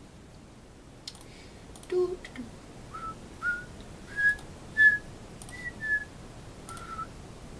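A man whistling idly to himself: about seven short, clear notes starting about three seconds in, stepping up in pitch and then dropping back, with a few faint clicks between them.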